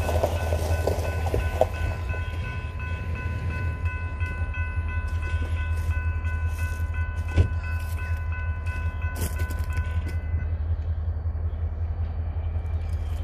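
Railroad grade-crossing warning bell ringing a steady multi-tone ring that stops about ten seconds in, over a low steady rumble from the approaching train, with one sharp knock partway through.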